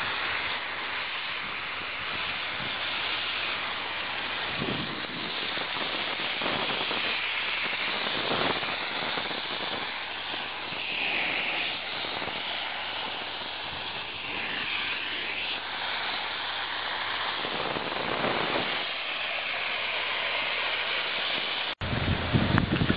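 Steady hiss of rain falling on the site, swelling and easing a little. Near the end the sound cuts off abruptly and comes back with a low rumble of wind on the microphone.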